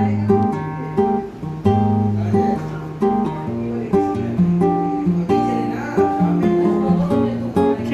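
Background music: a guitar playing a steady run of plucked chords and notes that change about every half second.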